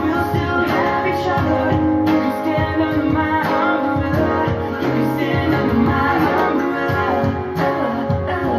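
Music: a song with guitar and singing.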